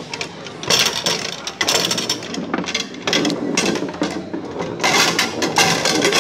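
Foosball table in play: rods spinning and rattling, the player figures clacking against the ball and the ball knocking against the wooden table, in quick irregular clusters of knocks.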